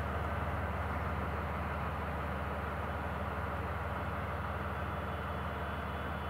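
JR Freight DF200 diesel-electric locomotive, the rear helper engine on a container freight train, moving away with its diesel engines giving a steady low drone that fades slightly.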